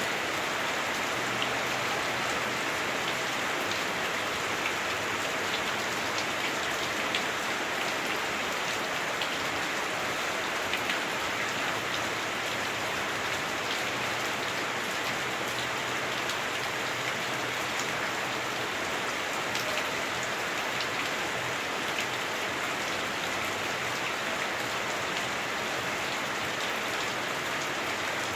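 Heavy rain drumming steadily on a house roof, heard from indoors, a dense even hiss with scattered individual drop ticks.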